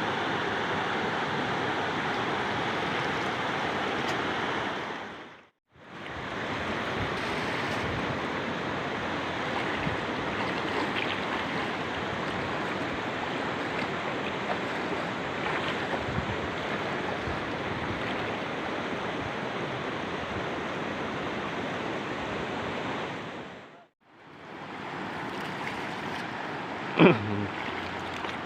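Steady rushing water noise that fades out briefly twice. A single sharp knock comes near the end.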